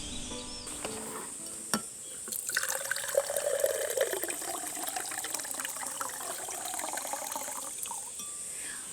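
A sharp click, then water pouring into a cup for about six seconds, the pitch climbing as it fills.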